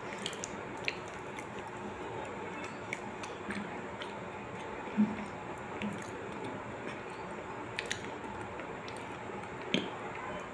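Person chewing food with mouth closed: soft wet clicks and smacks over a steady background hiss, the loudest smack about five seconds in and another near the end.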